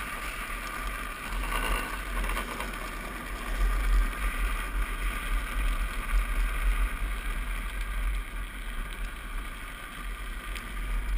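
Wind buffeting the microphone of a helmet-mounted camera while a drift trike rolls fast down a paved road, with a steady rumble of its wheels on the asphalt. A louder, brighter stretch of wheel noise comes about one and a half seconds in.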